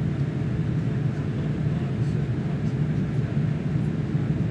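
Steady cabin noise inside a Boeing 787-8 in the climb after takeoff: the General Electric GEnx-1B engines and the airflow make an even, low drone.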